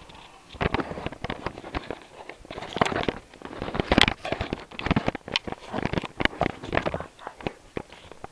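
A dense run of irregular clicks, taps and rustles, starting about half a second in.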